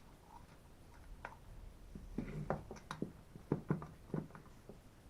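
A string of light clicks and knocks from tools and small chainsaw parts being handled during disassembly. They start about two seconds in, come about a dozen times over two seconds or so, and stop just before the end.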